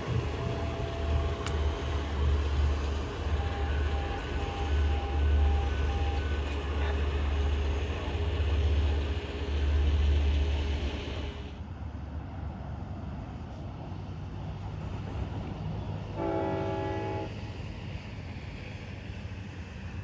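A train running past with a heavy low rumble, which drops away about twelve seconds in. Early on there is a run of short, evenly spaced beeps, and about sixteen seconds in a train horn gives one short blast.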